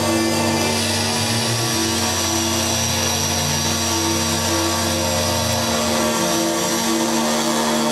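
MFOS Weird Sound Generator, a DIY analog synth, playing a dense looped electronic drone through a delay. Steady humming tones sit under a pulsing middle tone and a hissy, noisy layer. The lowest notes shift about two seconds in and drop out after about six seconds.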